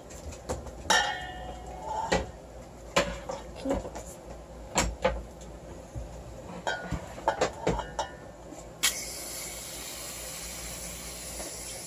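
Clicks and knocks of an aerosol shaving cream can being handled, then, about nine seconds in, a steady hiss as the can sprays foam.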